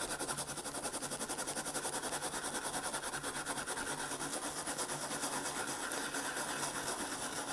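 Brass-bristle brush scrubbed quickly back and forth over a die-cast metal toy car base, a steady run of many short scratchy strokes a second, scouring off oxidation and sludge loosened by an acid soak.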